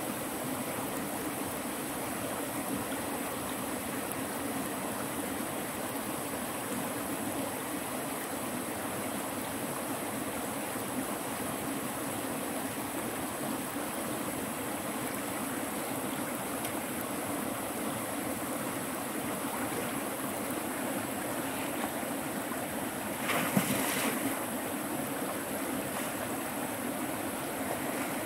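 River water flowing steadily, with a brief louder noise about three-quarters of the way through.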